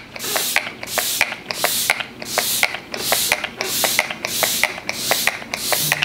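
Pump spray bottle of makeup setting spray misting the face in quick repeated pumps, each a click then a short hiss, about two to three a second.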